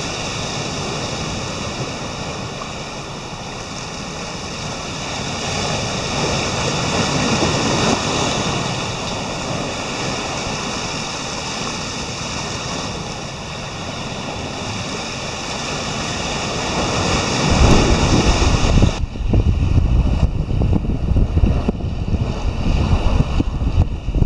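Atlantic surf breaking and washing over rocky intertidal ledges: a steady rush of moving seawater that swells and eases as waves surge in. Near the end it gives way to gusty wind buffeting the microphone, with the sea behind it.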